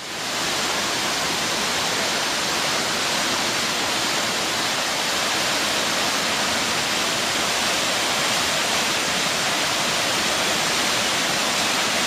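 A 60-foot waterfall pouring down into a rock grotto: a steady rush of falling water that swells in quickly at the start and then holds even.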